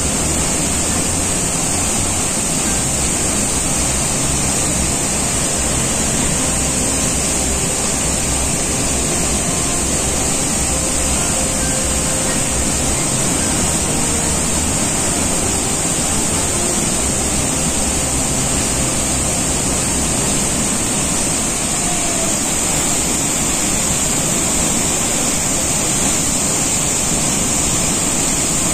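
Davis Falls (Patale Chhango) in heavy monsoon flow: a loud, steady rush of falling water plunging into the gorge, unbroken throughout.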